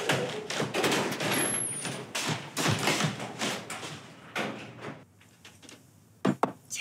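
Apartment front door being opened, with handle clatter, shuffling and small knocks, then two sharp knocks near the end as a ceramic bowl is set down on a table.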